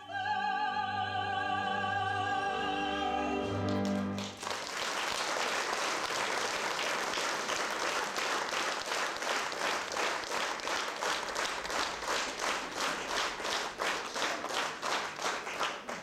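Operetta singers and the theatre orchestra hold the final note of a duet, which ends about four seconds in. The audience then breaks into applause, which settles into rhythmic clapping in unison, roughly two to three claps a second.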